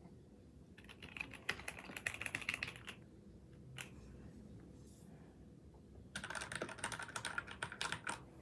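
Custom mechanical keyboard typed on in two quick runs of keystrokes, each about two seconds long, with a single keystroke between them; the sound is the 'creamy' one this board was built for.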